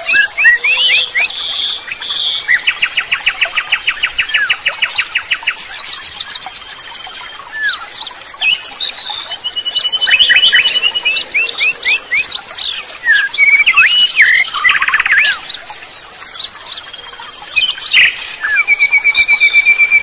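Several songbirds singing at once: a dense mix of quick chirps, whistled slurs and rapid trills. A fast, even trill of repeated notes runs for a couple of seconds early on, and another steady rapid trill starts near the end.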